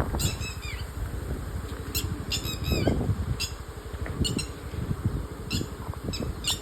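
Birds giving short, sharp high-pitched calls again and again, some as quick runs of falling notes, over a steady low rumble.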